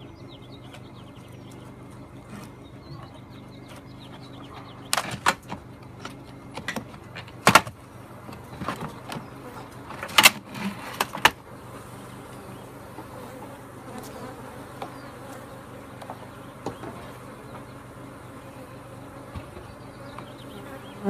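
Honeybees buzzing in a steady hum from a colony behind a wooden eave board. Sharp cracks and knocks come from about five to eleven seconds in as the board is pried open with a pry bar.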